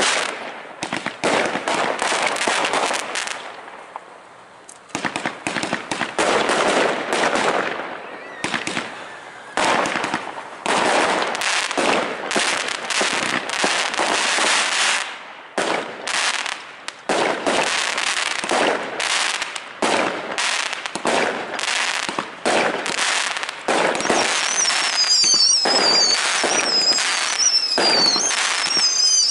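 Fireworks display: a rapid, nearly continuous barrage of bangs and crackling, easing briefly about four seconds in. Near the end, high wavering whistles sound over the bangs.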